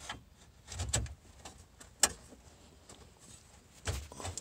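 Metal radio bracket being handled and pushed in the dashboard opening: a few sharp clicks and knocks, with duller thumps about a second in and near the end.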